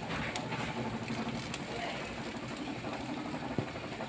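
Oven running with a steady mechanical hum, likely its rotisserie motor turning the spit, with a few light clicks.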